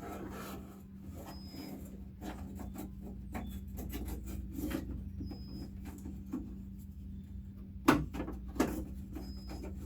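Small clicks, taps and rattles of metal latch linkage rods and clips being fitted to a Jeep Wrangler door latch, with one sharper click about eight seconds in.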